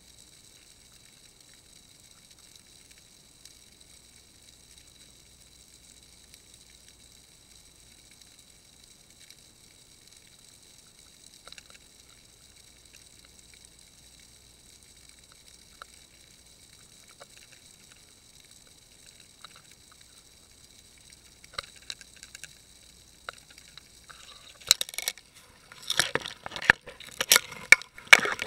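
Faint steady high hiss with a few light ticks, then, from about 25 seconds in, dense loud scratching and crackling as a blue swimmer crab claws at the underwater fishing camera's housing.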